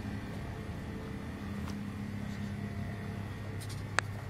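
Steady low rumble of outdoor background noise, with one sharp click near the end.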